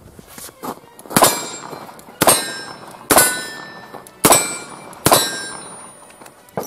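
Five .44 Special revolver shots from a Ruger GP100, about a second apart, each followed by the ringing clang of a steel plate target being hit.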